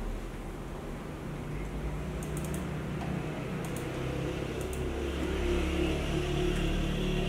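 HP laptop keyboard keys tapped in a few short clusters of clicks. Under them runs a steady low hum that grows louder near the end.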